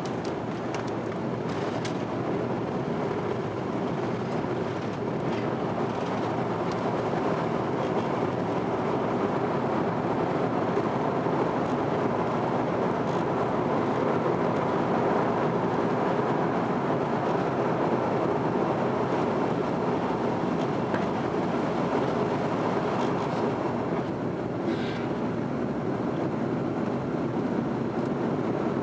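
Steady engine and airflow noise inside the cabin of an Airbus A330 airliner climbing after takeoff, with a few faint clicks near the start.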